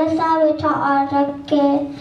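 A young girl singing solo into a microphone, holding steady notes with short breaks between phrases.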